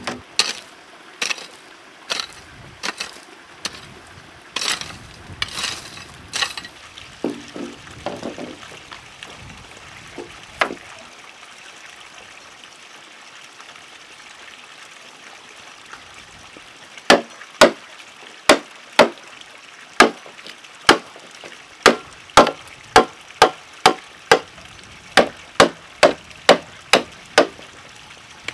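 A blade chopping into a green bamboo pole to notch it: a quick, regular series of sharp strikes, about two a second and speeding up, over the last ten seconds or so. Earlier come scattered knocks as the pole is handled and set down.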